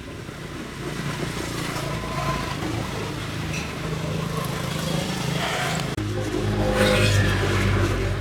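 A motor running steadily, growing louder, with its hum changing pitch about six seconds in.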